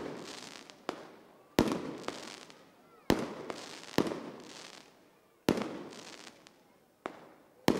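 Aerial fireworks shells bursting in the sky: about seven sharp bangs in eight seconds, each followed by a fading echo.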